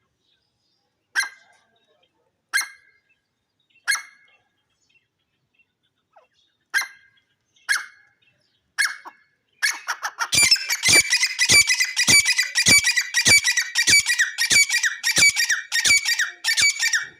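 Gray francolin calling: a few short single calls spaced about a second apart, then from about ten seconds in a loud, fast run of repeated calls, roughly two a second.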